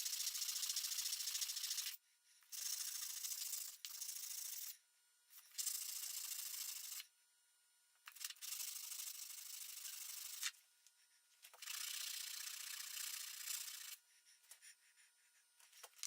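Abrasive rubbing on a part of a hand drill being restored, in five runs of about two seconds each with short pauses between.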